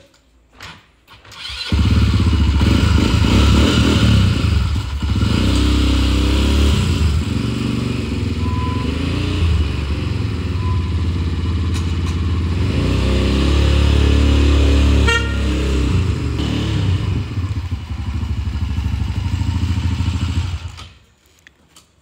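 Three-wheeled motorcycle's engine starting up about two seconds in and running loudly as the trike is ridden around, its level rising and falling with the throttle; it cuts off shortly before the end.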